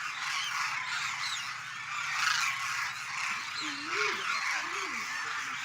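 A large flock of demoiselle cranes calling all at once, a dense continuous chorus of many overlapping honking calls.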